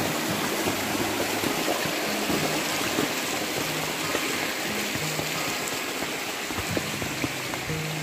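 Steady rushing of water, with soft background music underneath.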